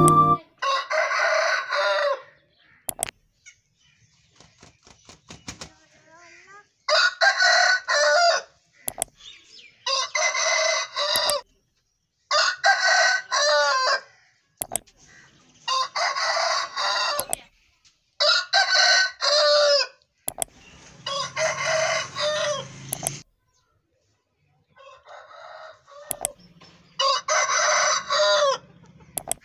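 Aseel roosters crowing, about nine crows one after another, each lasting about a second and a half, with short sharp clicks between some of them.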